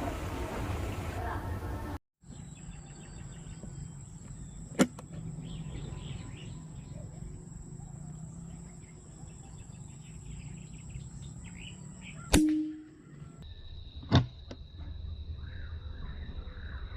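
Three sharp cracks, several seconds apart, over a steady high-pitched whine and outdoor background noise; the middle crack is followed by a short ringing tone.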